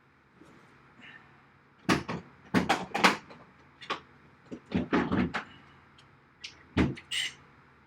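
A string of sharp knocks and clatters, loose and irregular, coming in clusters about two, five and seven seconds in.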